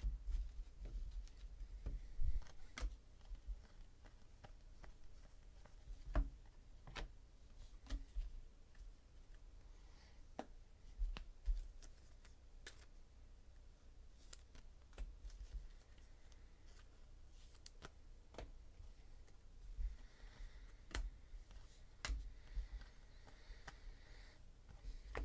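Football trading cards handled and sorted by hand: irregular soft clicks and taps of cards against each other and the tabletop.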